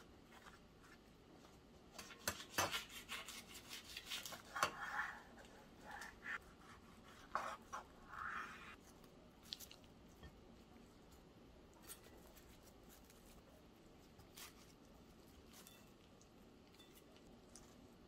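Quiet handling sounds: a run of light clicks and taps with a few brief rubbing or scraping noises from about 2 to 9 seconds in, then faint room tone.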